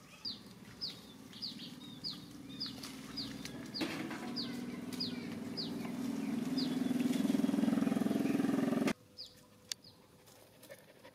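A bird repeats a short falling chirp about twice a second. Under it an engine hums, growing louder, then cuts off suddenly about nine seconds in.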